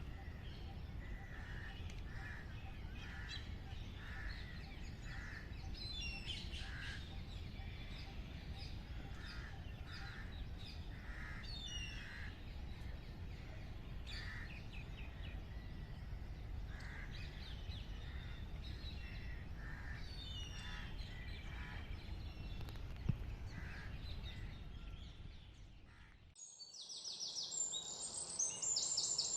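Wild birds calling and chirping, a short call repeated roughly every second and higher chirps between, over a steady low background rumble. About 26 seconds in the scene changes: the rumble drops away and rapid high-pitched trills take over.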